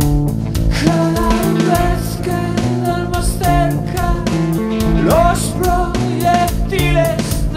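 Rock song: a man sings over guitar, bass and a drum kit, his voice sliding up through a held note about five seconds in.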